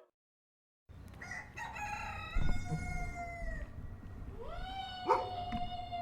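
Rooster crowing twice, one long cock-a-doodle-doo starting about a second in and another about four and a half seconds in, each ending on a long held note, over low farmyard background noise.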